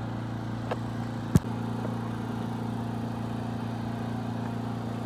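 An engine idling steadily with an even hum, and a single sharp click about a second and a half in.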